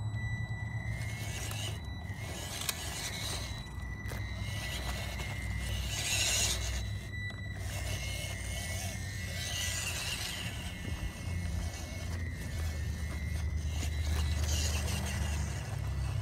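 Small 1:16 scale RC crawler truck with a 260 brushed electric motor, whining steadily as it drives, with its tyres scraping and crunching over rock and gravel in several short bursts, over a steady low rumble.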